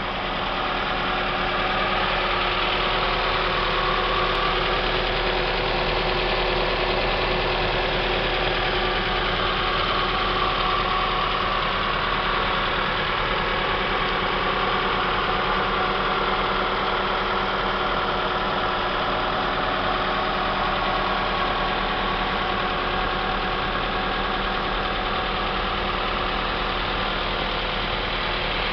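Toyota RAV4's 3S 2.0-litre inline-four petrol engine idling steadily, heard close up under the open bonnet.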